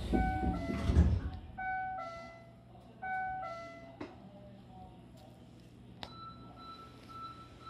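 Electric train's sliding passenger doors closing to a two-note electronic chime that repeats three times, with the doors meeting in a heavy thud about a second in. Sharp clicks follow about four and six seconds in, and then a faint steady high tone that pulses.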